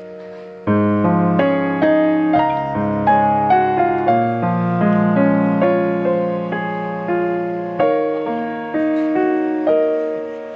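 Background piano music: struck notes and chords that ring and die away, in a gentle steady rhythm.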